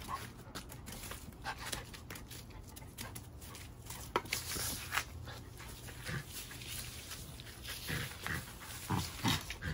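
Stiff broom bristles repeatedly scraping and swishing over concrete pavers and fallen leaves while a mini labradoodle puppy tussles with the broom, with a few short puppy vocalizations near the end.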